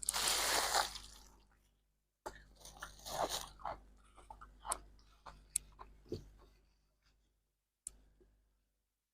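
Ice crunching as it is bitten: one loud, dense crunch at the start, then a run of sharper, separate cracks as it is chewed, fading away, with one last crack near the end.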